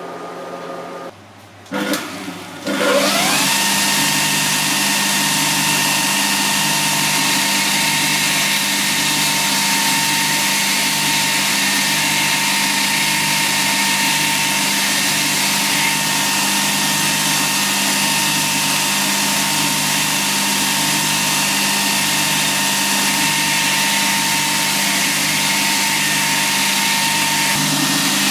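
An electric motor starts about two and a half seconds in, its whine rising in pitch as it spins up, then runs steadily at constant speed. Another steady hum cuts off just before it.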